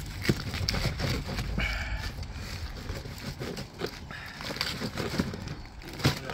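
Knife carving through a whole spit-roasted lamb, with scattered knocks and crunching as the blade cuts through crisp skin, meat and bone and strikes the table top.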